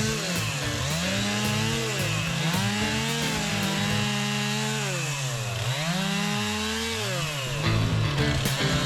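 Gasoline chainsaws cutting into a large ash stump. The engine pitch repeatedly sags as the bar loads in the cut and climbs again as it frees up, with two saws at times running at once.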